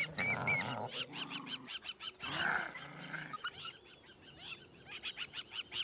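Jackals giving many short, high, rising-and-falling yelps and whines, with a lower snarling cry about two seconds in. This is an encounter with a trespassing female whose cringing posture signals submission.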